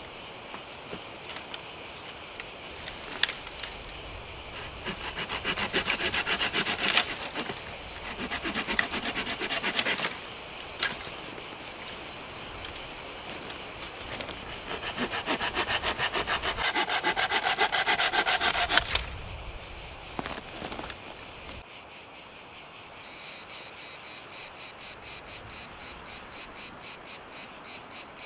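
A hand saw cutting through a dead branch in quick back-and-forth strokes, from about four seconds in until about nineteen seconds. Under it a steady high-pitched insect chorus carries on throughout and turns into a fast even pulsing near the end.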